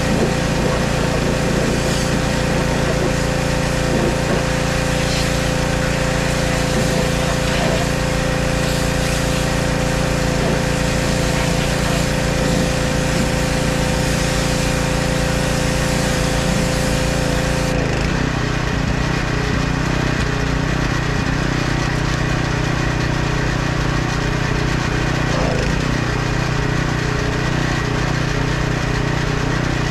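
Pressure washer running: a steady motor drone under the hiss of the high-pressure spray on the truck. About eighteen seconds in the sharpest part of the hiss drops away and the drone shifts to a lower note.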